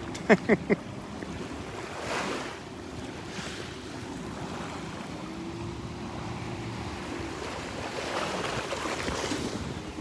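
Small Gulf surf washing up the beach in swells, with wind on the microphone and the faint steady drone of jet skis offshore midway through. Three short falling calls sound at the very start.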